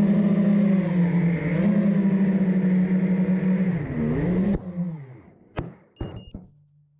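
FPV quadcopter's motors and propellers humming steadily, dipping in pitch briefly near 4 s, then cutting off suddenly; two sharp knocks follow as the quad crashes into the grass.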